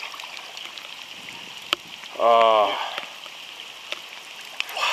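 A man's short wordless vocal sound, about half a second long, a little over two seconds in, over a steady background hiss with a few faint clicks.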